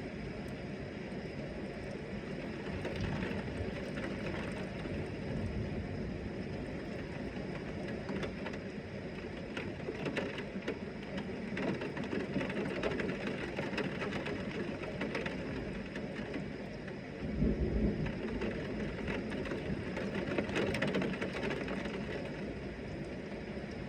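Heavy rain in a thunderstorm, a steady wash of noise with many small sharp drop hits. About two-thirds of the way through, a sudden low rumble swells and then fades.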